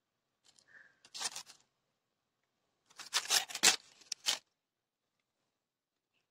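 Matches struck against the side of a matchbox: a few short scrapes about a second in, then a quicker, louder run of rasping strikes from about three to four and a half seconds in.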